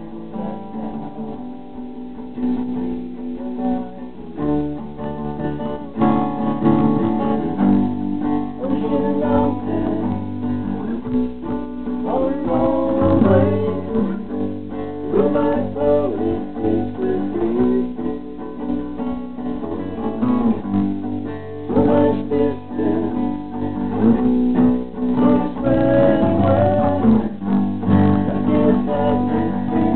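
Live acoustic guitar strummed with a man singing over it. The sound fills out with deeper low notes about six seconds in, and the singing comes in soon after.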